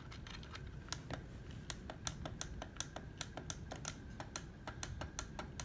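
Small plastic buttons on a Sharp digital alarm clock clicked over and over, about five presses a second, stepping the alarm minutes forward.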